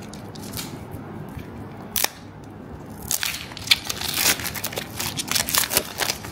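Foil Pokémon booster pack wrapper being torn open by hand and crinkled as the cards are pulled out: one sharp snap about two seconds in, then a run of crackles.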